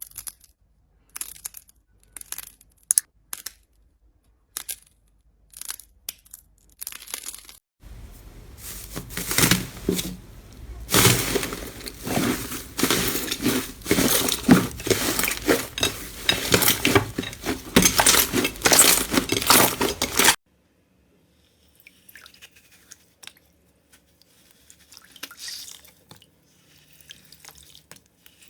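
Slime being pressed and squeezed close to the microphone. Scattered sharp crackles and pops for the first several seconds, then about twelve seconds of dense, loud crunching and crackling that cuts off suddenly. Faint soft squishing follows.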